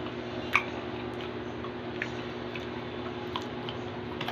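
A person chewing pork chicharon and fat, with a few scattered sharp clicks, the loudest about half a second in, over a steady low hum.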